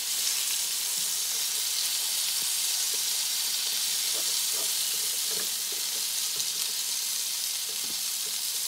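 Hamburg steaks simmering in a ketchup sauce in a frying pan, giving a steady sizzling hiss, with a few soft scrapes of a wooden spatula moving them about midway.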